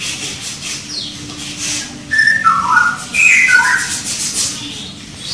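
A hand stroking a Persian cat's long fur, with repeated soft rubbing strokes. About two seconds in come two short runs of clear whistle-like notes, each stepping down in pitch, louder than the stroking.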